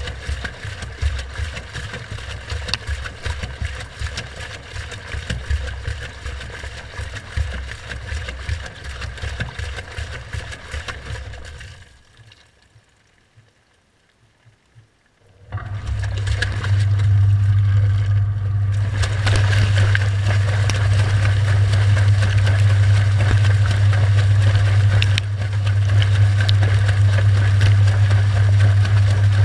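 Washing machine heard from inside its drum: a low, uneven rumble of the turning drum, which stops about twelve seconds in. After a few seconds of near silence a loud, steady low hum starts suddenly and runs on without changing pitch.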